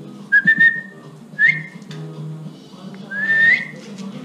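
A person whistling three short notes to call a dog, each note rising a little; the last is the longest and rises most.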